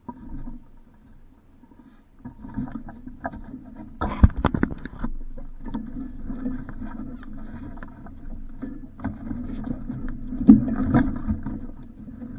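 Water sloshing and splashing around a small sailboat's hull, with sharp knocks, the loudest about four seconds in and again near ten and a half seconds.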